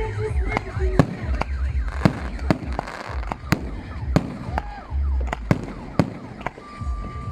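Fireworks salute: shells bursting in a quick series of sharp bangs, about one every half second, over a continuous low rumble, with faint whistles gliding in pitch between them.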